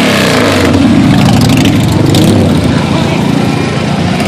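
Several motorcycle engines running and revving loudly as a group of bikes rides slowly past, with crowd voices underneath.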